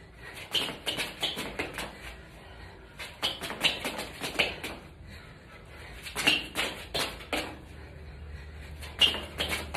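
Sneakers tapping and scuffing on a concrete floor as two people hop and step through a cardio exercise, in quick clusters of footfalls every two to three seconds.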